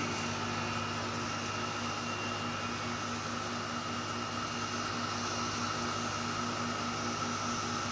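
Steady mechanical hum with a fixed mid-pitched tone and a low tone pulsing several times a second.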